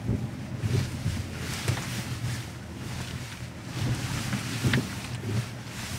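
Ineos Grenadier Utility Wagon crawling over a rough rocky trail, heard from inside the cabin: a steady low engine drone with several knocks and thumps as the wheels and body go over rocks.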